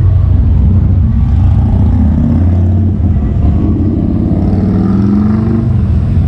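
A car engine running with a low, steady rumble, its pitch rising as it revs about four and a half seconds in.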